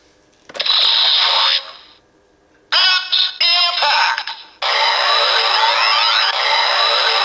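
Electronic sound effects from the Bandai DX Hiden Zero-One Driver transformation belt toy: a short sweep, a choppy stuttering electronic passage, then a looping standby tune with a rising chirp repeating about once a second.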